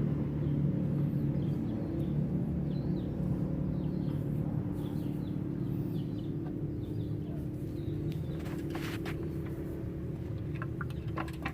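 Diesel engine running steadily with a low hum, with birds chirping. There is a brief scraping noise about eight seconds in and a few clicks near the end.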